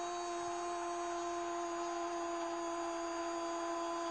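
A football commentator's long, unbroken shout of "gol" on one steady note, celebrating a goal.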